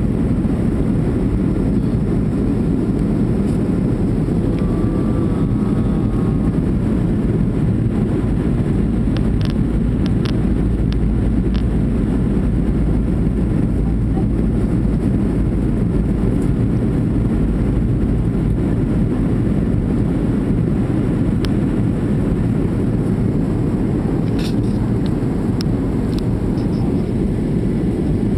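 Jet airliner cabin noise heard from a window seat over the wing on approach to land: a loud, steady rumble of engines and airflow, with a few faint ticks.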